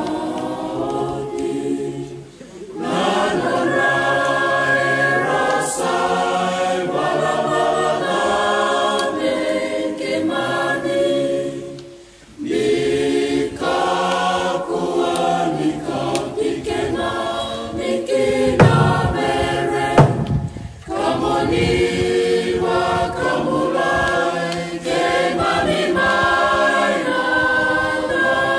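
Fijian men's choir singing a cappella in harmony, in long phrases broken by brief pauses.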